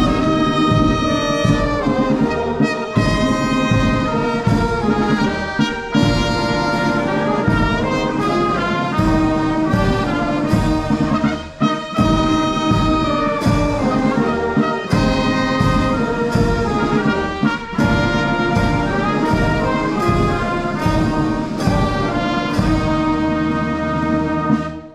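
Brass band playing a slow piece in held chords, during a wreath-laying ceremony. The music cuts off near the end.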